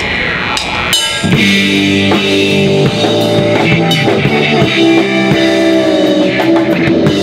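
A rock band playing, with drums and cymbals over steady held notes. The full band comes in with a hit about a second in, after a wavering, gliding sound.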